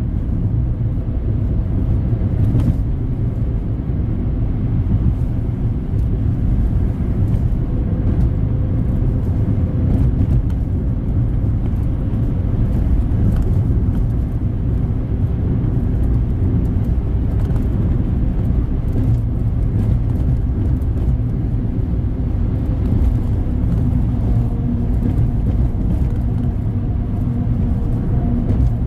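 Car driving steadily through a road tunnel, heard from inside the cabin: a continuous low rumble of engine and tyre noise with a faint steady hum.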